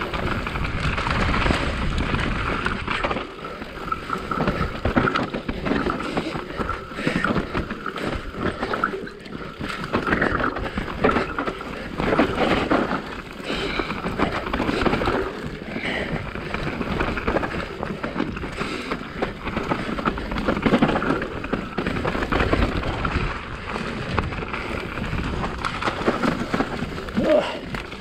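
Specialized Enduro mountain bike running fast down a dirt trail: a steady rush of tyre and trail noise, broken by constant small clicks and clattering knocks as the bike goes over bumps.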